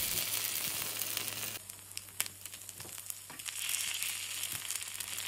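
Rice masa batter sizzling as it fries in a multi-cup masa pan, a steady hiss with scattered small pops. The sizzle drops suddenly in level about a second and a half in, then carries on quieter.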